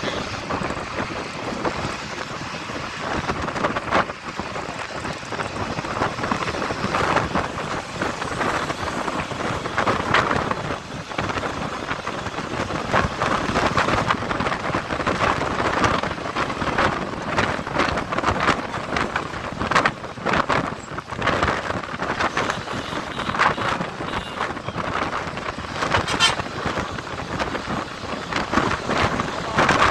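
Wind rushing past the open window of a moving bus and buffeting the phone's microphone, over the bus's road noise. The rush rises and falls in constant gusts.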